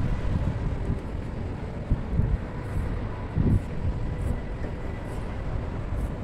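Wind buffeting the microphone: a low, uneven rumble that swells in gusts, with faint steady tones behind it.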